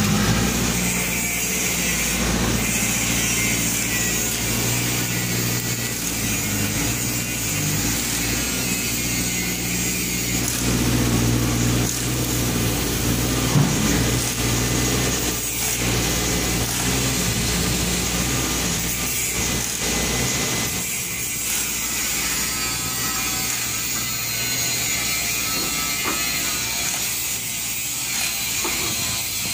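Steady machinery noise with a low engine-like hum, which drops away about twenty seconds in.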